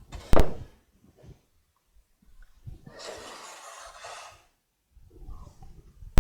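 Plywood pieces being handled: a sharp wooden knock just after the start, then a few light taps and a short rushing, breath-like sound about three seconds in, with a sharp click at the very end.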